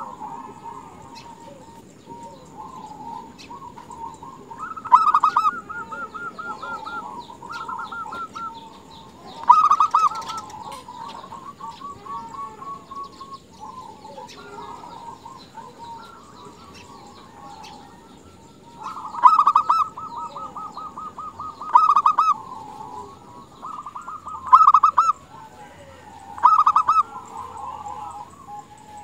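Zebra dove (perkutut) cooing: about six loud bursts of its rapid, stuttering coo series, with softer cooing between. This is a female's call to a male, of the kind used to provoke male doves into singing.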